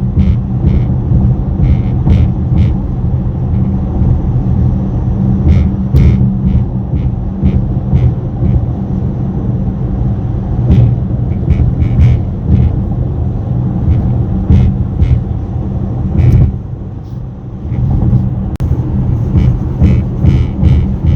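Cabin noise of a 2024 Mercedes-AMG GLE63 S at highway speed: a steady low road drone with frequent short, irregular rattling clicks. These clicks are the vibration noise from the dash area, which the owner cannot trace. The drone eases for about a second near the end.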